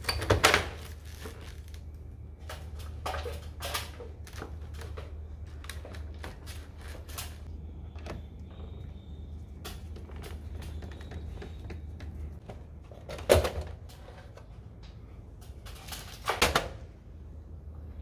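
Plastic drain pan and casing parts of a wall-mounted air conditioner's indoor unit being fitted back by hand: scattered clicks and knocks as parts are pushed and snapped into place, the loudest just after the start, about two-thirds through and near the end, over a low steady hum.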